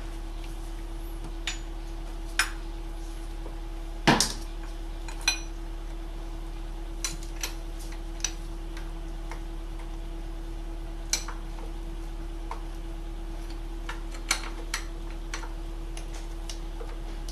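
Scattered sharp metallic clicks and clinks of hand tools on the oil pressure switch as it is screwed back into the engine and snugged up, with one louder knock about four seconds in.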